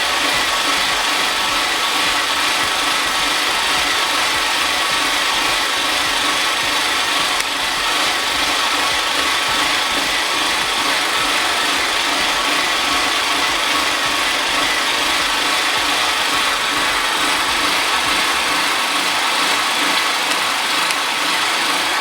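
Small 2 kW gasoline generator engine running steadily while powering a set of lights.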